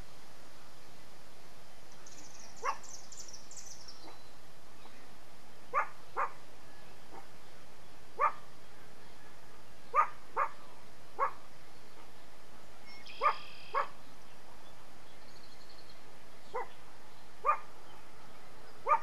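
A dog barking in short single barks, about a dozen spaced irregularly a second or more apart, some in quick pairs. A small bird chirps briefly in a high trill a couple of seconds in.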